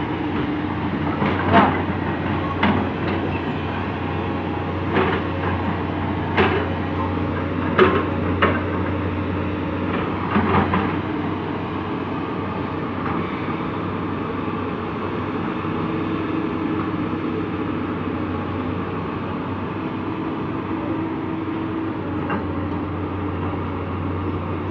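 JCB JS200SC excavator's diesel engine running steadily under load. Several sharp knocks come in the first half, then only the steady engine continues.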